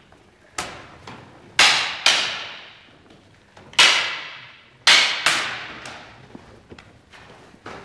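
Practice swords of wood and red synthetic clacking together in sparring: about six sharp strikes at uneven intervals, with a few lighter taps between. Each strike rings on in the long echo of a large gym hall.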